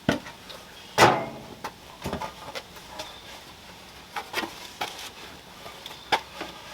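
A few scattered knocks and clunks of wooden chair pieces being handled and set down on a workbench, the loudest about a second in with a short ring after it.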